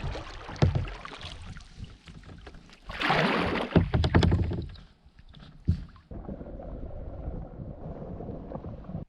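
Kayak paddling: paddle strokes splashing and dripping in lake water, with a few sharp knocks. The loudest spell of splashing comes about three seconds in.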